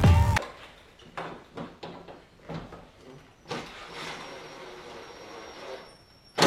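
Background music cuts off just after the start. Faint scattered clicks and light knocks follow, from car parts being handled, and then a soft steady hiss lasting about two and a half seconds.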